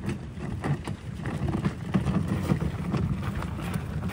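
Wheels of a DeWALT ToughSystem rolling tool-box cart rumbling and rattling over rough dirt and gravel as it is pulled along, with irregular small clicks and knocks.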